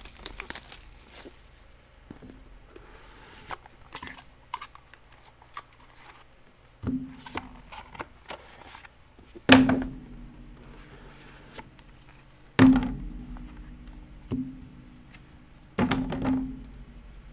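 Trading cards and packs being handled on a tabletop: faint rustling and small clicks, then four dull thuds about three seconds apart in the second half, each followed by a short low ring.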